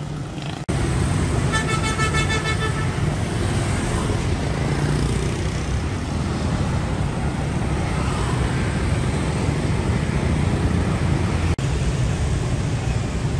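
City street traffic of motorbikes, cars and buses, a steady low rumble of engines and tyres. A vehicle horn beeps in a quick string of short toots about a second and a half in.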